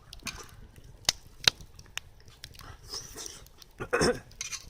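A person eating hot noodles, chewing and slurping, with a few sharp clicks, the loudest about a second and a half in, and a short louder mouth sound near the end.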